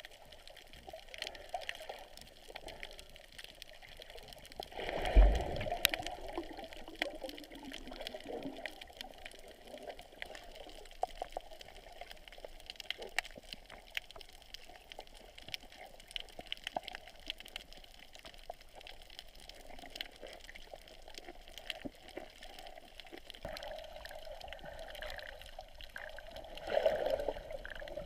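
Muffled water sound heard through a GoPro's waterproof housing underwater, with scattered sharp clicks, a louder low rush about five seconds in and another swell near the end.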